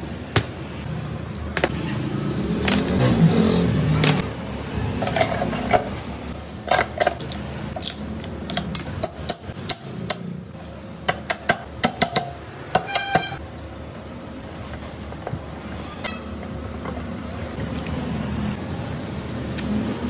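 Sharp metal taps and clinks of a hammer and hand tools on an opened Danfoss fridge compressor, coming in irregular strokes with a quick run of strikes midway and a brief metallic ring. A low rumble sits under the first few seconds.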